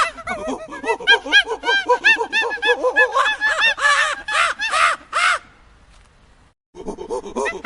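Many birds calling over one another in short, rapid calls that rise and fall. The calls cut off abruptly about five seconds in, and after a brief gap a new run of similar calls starts near the end.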